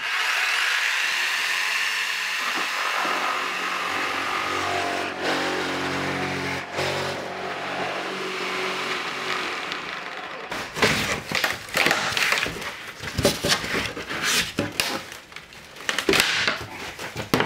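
Handheld power tool running steadily for about ten seconds as it cuts into timber, then stopping. A run of knocks and clatter follows as boards are handled.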